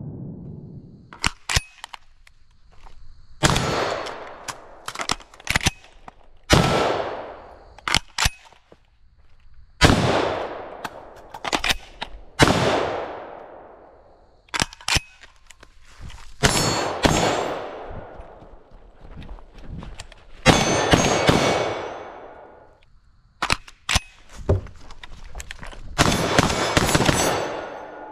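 Shots from an FN SCAR 16S 5.56 mm short-barreled rifle, fired singly and in quick pairs and strings, each followed by a long echo dying away, with sharp metallic pings of hits on steel targets between them.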